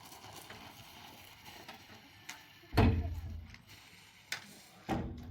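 Three dull thumps or knocks, the loudest about three seconds in and two smaller ones near the end.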